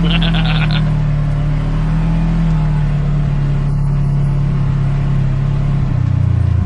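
Side-by-side UTV engine running steadily at low trail speed, its pitch easing down a little partway through.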